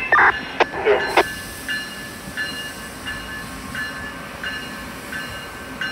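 Amtrak Northeast Regional passenger train hauled by an ACS-64 electric locomotive rolling past, the cars' wheels running on the rails, with a bell dinging evenly about every 0.7 seconds. A loud burst with two sharp knocks comes in the first second.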